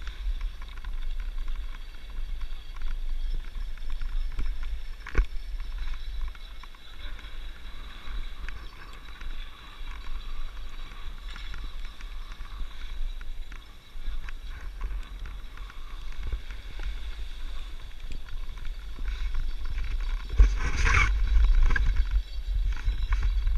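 Skis sliding and hissing over packed, chopped-up snow, with a low wind rumble on the microphone. A single sharp knock comes about five seconds in, and near the end a louder scrape of the ski edges on the snow as the skier slows down.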